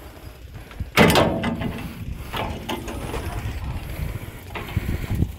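Metal latch of an XCMG XE215C excavator's engine cover being worked by hand as the cover is opened: a loud clank about a second in, then clicks and rattles from the latch and hinge.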